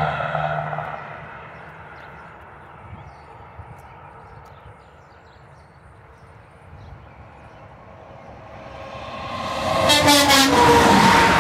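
Passing traffic fades in the first second, then a semi truck approaches and, about ten seconds in, sounds its air horn as it goes by, a chord of several steady notes over the rush of the truck passing.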